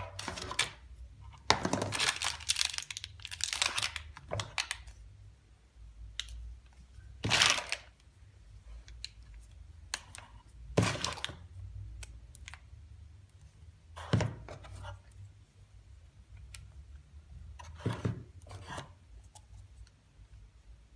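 Plastic packaging being handled, crinkling and rustling for a couple of seconds, then a few separate short rustles or knocks spaced several seconds apart as items are moved.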